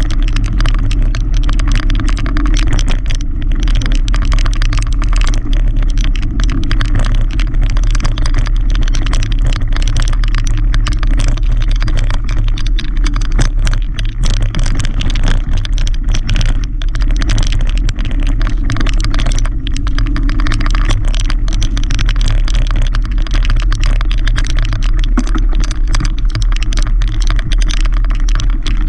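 Mountain bike rolling over a loose gravel and dirt trail: a steady low rumble with constant rattling and crunching of the tyres and bike over the stones.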